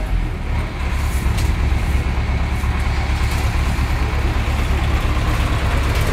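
Heavy machinery engine running steadily with a low, even hum.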